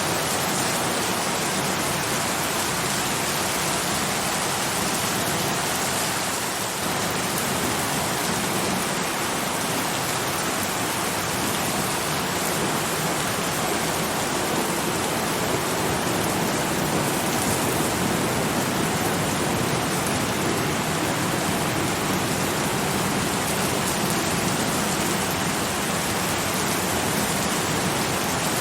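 Steady, heavy rain falling, an even dense hiss of drops on surfaces.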